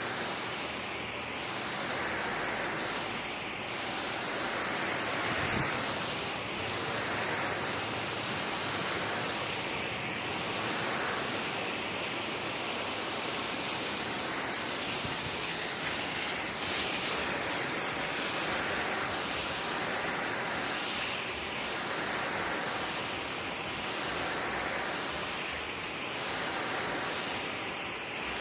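Water spraying onto a lawn during watering: a steady hiss that swells and eases about every two seconds.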